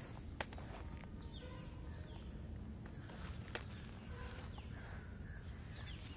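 Outdoor ambience: a steady low rumble with faint, scattered bird chirps and whistles, and two sharp clicks, one about half a second in and one past the middle.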